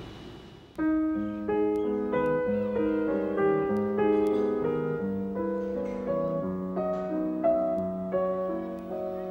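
Background music: a slow piano melody of single notes over held lower notes, starting about a second in after a fading hiss.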